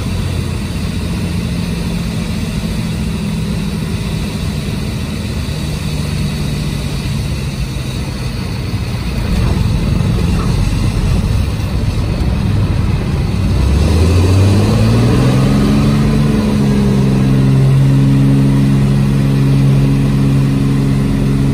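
Cessna 206H Stationair's Lycoming six-cylinder engine and propeller running steadily at low power, heard from inside the cockpit. About fourteen seconds in the engine revs up with a rising pitch, then holds steady at the higher power.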